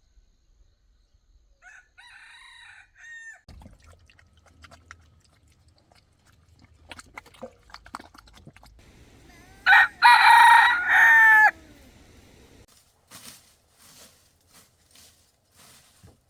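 A rooster crowing once, loud and about two seconds long, near the middle. A fainter call comes a couple of seconds in, and scattered light clicks and taps follow the crow.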